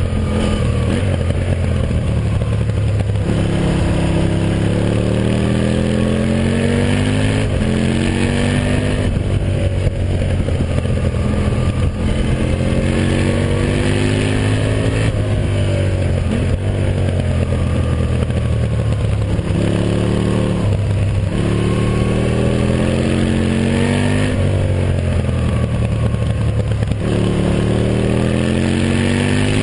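Aprilia Tuono Factory motorcycle engine under hard riding. Its note climbs under acceleration and drops at each gear change or roll-off, about a dozen times, over a steady rush of noise.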